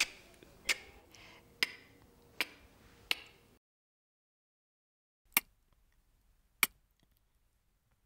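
A voice saying the pure, unvoiced phonics sound 'k' with no vowel after it: short, crisp 'k' bursts, five of them about a second apart, then two more after a pause of about two seconds.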